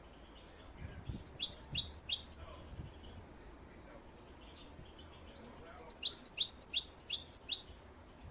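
A small songbird singing two phrases, each a quick run of high, down-sweeping notes repeated several times. The first comes about a second in and the second near the end, with fainter chirps from other birds in the background.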